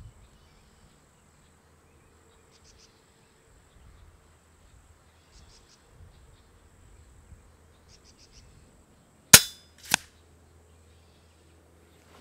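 An FX Impact X .25 PCP air rifle firing: one sharp crack about nine seconds in, then a second, weaker crack about half a second later. Faint insect chirps come in short bursts every few seconds.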